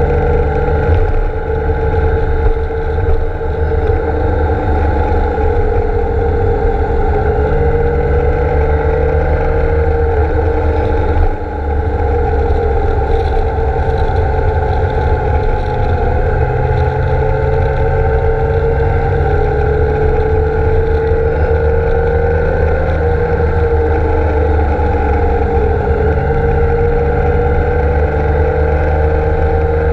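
BMW K1600 GTL's inline-six engine running steadily at road speed, its pitch drifting gently up and down with the throttle through the curves, over a low rumble of wind and road noise. The level dips briefly about eleven seconds in.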